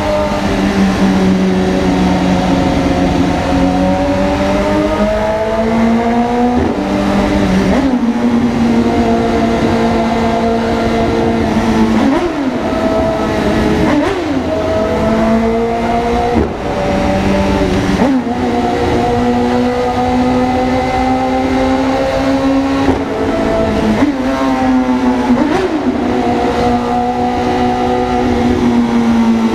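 Car exhaust fitted with a grenade-style muffler, its engine note droning steadily while driving. The pitch climbs slowly, drops sharply at a gear change about seven seconds in, then dips and recovers several more times.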